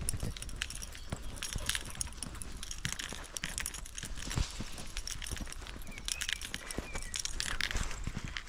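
Footsteps through long grass with the stalks swishing and rustling, and irregular light knocks and scuffs.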